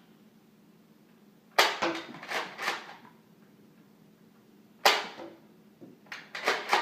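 Toy Nerf blaster firing foam darts: a sharp snap about one and a half seconds in, another about three seconds later, each followed by a few lighter knocks, and a quick run of clicks near the end.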